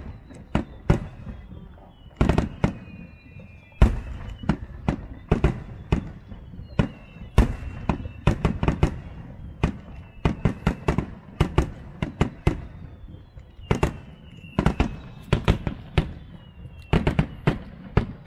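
Fireworks display: a rapid run of sharp shell bursts and bangs, at times several a second, with whistling tones that slide down in pitch between them.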